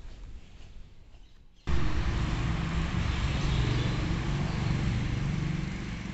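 Steady outdoor rumble with a hiss over it, coming in abruptly a little under two seconds in.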